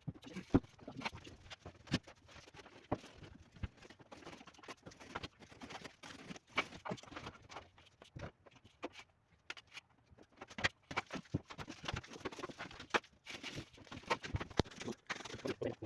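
Irregular taps, knocks and clicks from hand work on renovation materials, with no steady rhythm.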